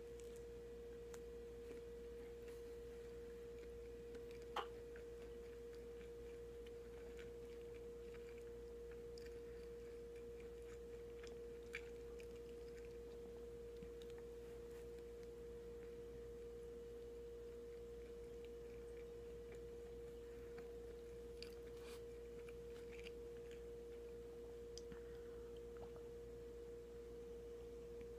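Faint eating sounds of a person chewing a sandwich, soft mouth noises and a few small clicks, the sharpest about four and a half seconds in, over a steady low hum held on one pitch.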